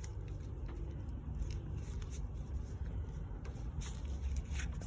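Steady low rumble, like a vehicle cabin with the engine running, with a few faint clicks and rustles.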